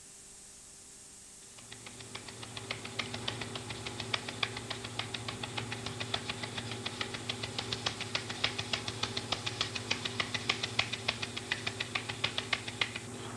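A round wooden-rimmed sieve shaken over a stainless steel bowl: a fast, uneven run of light ticks and taps, several a second, starting about two seconds in and stopping shortly before the end, over a steady low hum.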